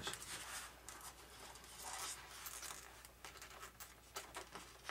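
Faint scratching and rubbing with small clicks as a wire is worked into a slot cut in the foam airframe.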